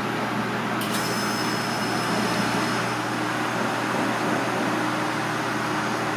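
Steady background noise with a constant low hum, and a short click about a second in.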